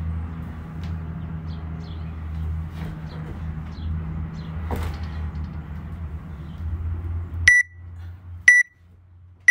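A steady low hum with a few faint knocks, then three short, high countdown beeps about a second apart near the end from an interval timer, marking the last seconds of a work round.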